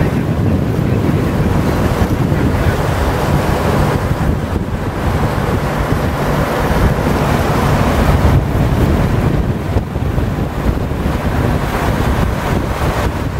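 Wind buffeting the microphone on a moving river boat, with a steady rush of water and the boat's engine running underneath.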